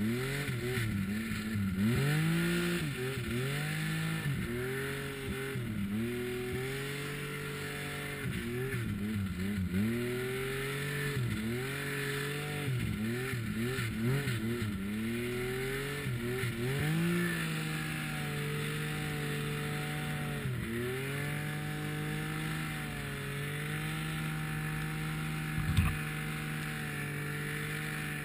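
Snowmobile engine running under load through deep powder, its pitch rising and falling with repeated throttle changes. About halfway through it settles into a higher, steadier run, with one brief dip. A single sharp knock near the end.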